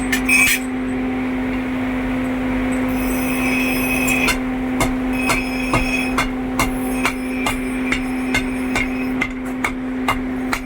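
Hammer blows on metal in a forge, coming in a regular rhythm of about two strikes a second from a few seconds in, each with a short metallic ring, over a steady machine hum.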